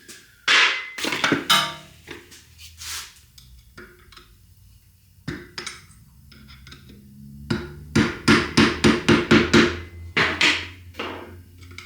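Scattered metal clanks and knocks of tools and parts being handled, with a quick run of about eight ringing taps, roughly five a second, about two-thirds of the way in.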